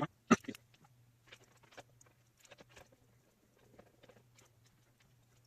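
Small clicks and taps of hands working on computer parts and screws inside a PC case, with one sharp click about a third of a second in, over a steady low hum.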